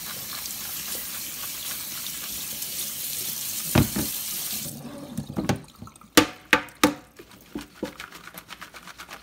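Cold water running from a kitchen tap onto blanched omena anchovies in a plastic colander in a stainless steel sink. About halfway through the water stops, and the colander is shaken to drain, giving a string of sharp knocks and rattles.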